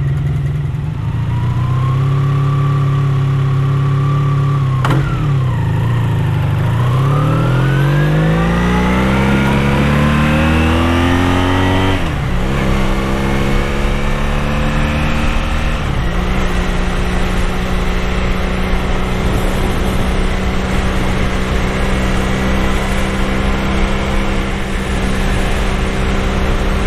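Honda VF750F Interceptor's V4 engine idling at a standstill, then pulling away about five seconds in with the revs rising through the gears, two upshifts a few seconds apart, and settling into a steady cruise.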